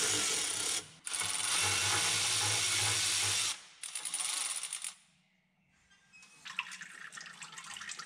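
Ratchet wrench removing the front oil pan bolts: a steady whirring run that stops about a second in, starts again and stops after about three and a half seconds, followed by a rougher, quieter stretch and then faint clicking near the end.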